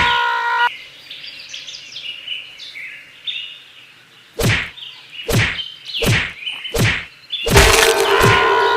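Four sharp knocks about a second apart, after a stretch of faint bird chirping; a steady ringing tone cuts off early on and another starts near the end.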